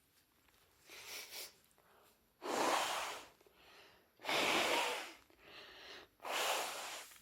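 A woman with a heavy cold sneezing three times in a row, about two seconds apart, each sneeze starting suddenly. A softer breath comes about a second in.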